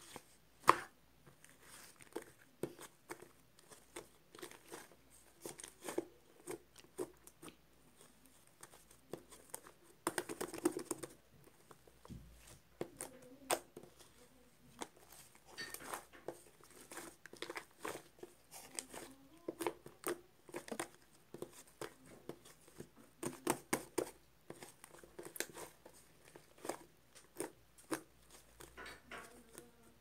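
Hands stretching, squeezing and poking white slime, giving irregular small clicks and crackles as it pulls apart and presses together, with a denser run of crackling about ten seconds in.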